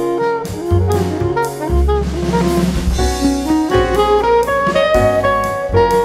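Instrumental jazz music: a melody over a bass line and drum kit, with a cymbal wash about two seconds in.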